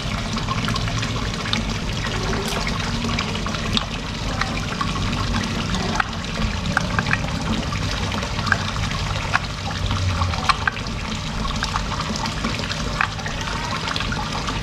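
Steady running water, with scattered light clicks as a bolt is screwed back into the plastic filter cover of an aquarium air pump with a screwdriver.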